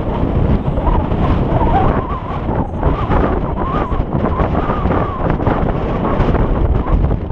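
Strong wind buffeting the camera's microphone: a loud, steady rumbling roar with constant gusty fluctuation.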